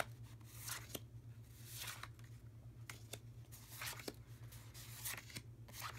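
Stiff 4x6 scrapbook paper cards sliding and rustling against one another as they are leafed through by hand, in short scattered swishes over a faint steady low hum.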